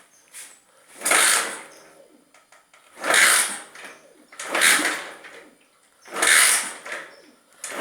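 A Honda CG Titan motorcycle's single-cylinder engine being cranked in about five short bursts, each under a second, a second or two apart, without settling into a steady idle: the bike is hard to start.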